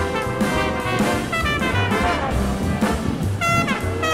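Background music: jazz with brass instruments over a bass line and a steady beat.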